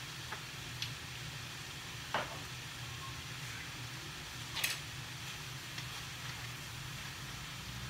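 Bean sprouts and pork sizzling steadily in a frying pan, with a few light clicks and knocks, the loudest about four and a half seconds in.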